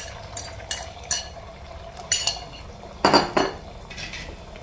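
A utensil clinking and scraping against a pan while eggs are stirred, in a series of short knocks with the loudest cluster about three seconds in.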